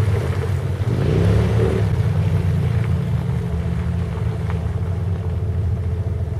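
Hummer H3's 3.7-litre inline-five engine running under load through a Magnaflow performance exhaust as the truck pushes through deep mud. Its note rises about a second in, then holds steady.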